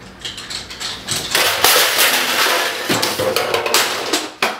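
Office desk items (a laptop, a plastic basket, a desk telephone and papers) swept off a desk and crashing to the floor in a jumble of knocks and clatter that builds about a second in and dies down near the end.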